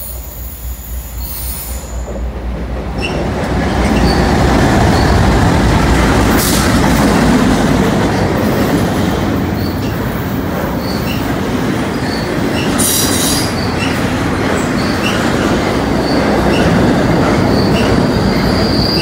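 Double-stack container freight train rolling past: a steady rumble of wheels on rail that builds over the first few seconds, with short, scattered wheel-squeal squeaks and a steady high squeal growing near the end.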